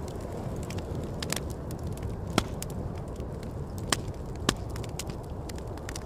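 Campfire crackling and popping, with three sharper pops standing out in the middle, over a steady low rush of wind.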